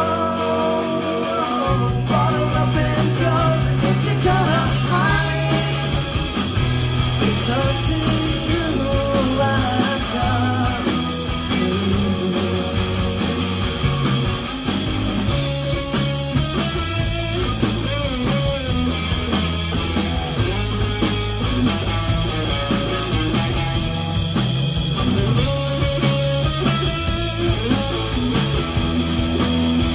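Live rock band playing an instrumental break: electric guitar carrying the melody over bass guitar and drums, with the bass line coming in about two seconds in.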